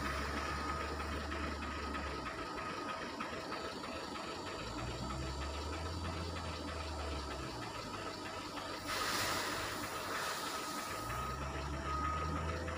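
Caterpillar 966 wheel loader's diesel engine running and revving in surges as it lifts and tips a bucket of crushed stone chips into a dump lorry, with a reversing alarm beeping at the start and near the end. A short rushing burst comes about nine seconds in.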